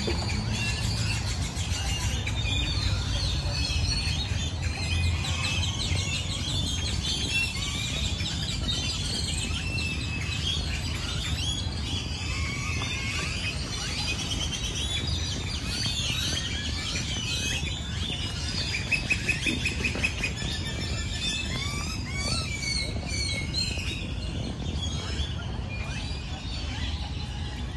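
Dense chorus of many birds chirping and calling together in the trees, with a quick run of rapidly repeated notes standing out about two-thirds of the way through, over a steady low city rumble.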